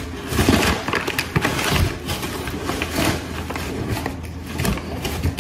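Flour being scooped with a metal measuring cup: continuous rustling and scraping with many small knocks and clicks, over a steady low hum.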